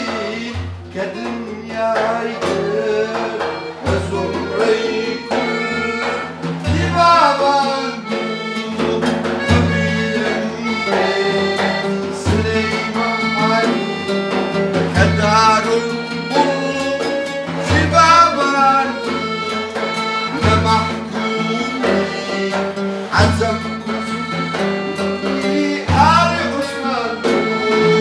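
Live acoustic band playing a Kurdish song: accordion and acoustic guitar, with a daf frame drum giving a deep stroke about every three seconds, and a man's voice singing over them in phrases.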